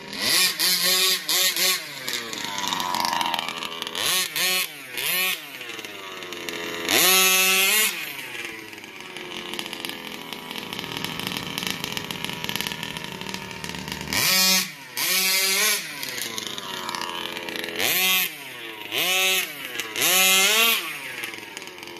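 Two-stroke gasoline engine of a large-scale RC buggy revving in repeated bursts of throttle. Its pitch sweeps up and falls back each time, settling to a lower buzz between bursts.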